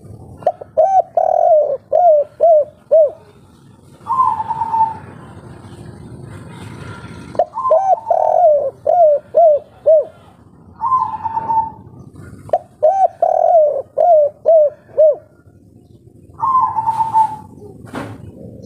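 Spotted dove cooing a 'kuk 3' song: three phrases of quick repeated short coos, with longer, slightly higher single coos between them. A sharp click near the end.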